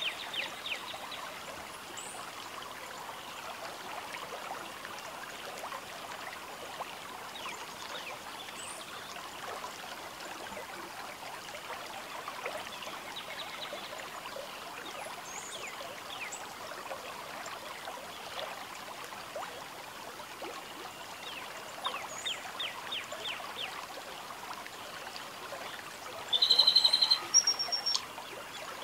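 Riverbank wildlife: birds chirping and rapid trilling calls over a steady background hiss, with one loud, close call near the end.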